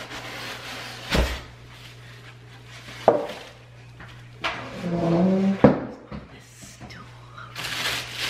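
Cardboard box and foam packing being handled while unboxing a pressure cooker: three sharp knocks and thumps, about a second in, about three seconds in and just before six seconds, with plastic wrapping rustling near the end. A brief hum of a voice comes in the middle.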